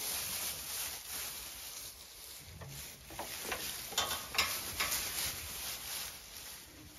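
Fresh straw bedding rustling as Zwartbles sheep and a person walk through it, with a few sharper crackles about three to five seconds in.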